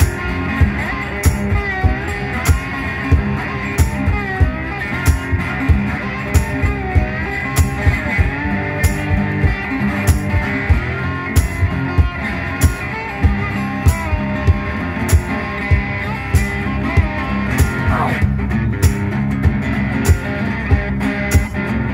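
Instrumental blues on a metal-bodied resonator guitar, amplified through a PA, with notes that slide up and down in pitch and a sweeping upward glide near the end. A steady beat of sharp knocks runs underneath.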